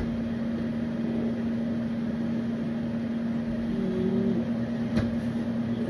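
A steady low mechanical hum over a hiss of background noise, with a short low tone about four seconds in and one sharp click about five seconds in.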